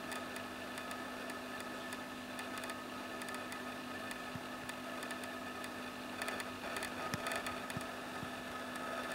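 Steady low mechanical hum with hiss and scattered faint ticks, a little busier about two-thirds of the way through.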